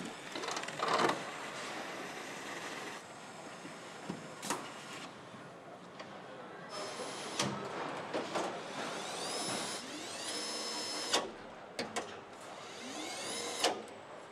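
Power screwdrivers on a car assembly line, whirring up to speed in several short runs that level off, over steady factory noise with a few sharp clanks.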